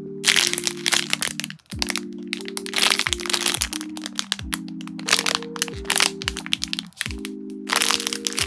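Clear cellophane bags crinkling and crackling as squishy toys inside them are handled and squeezed, in quick dense bursts with two brief pauses.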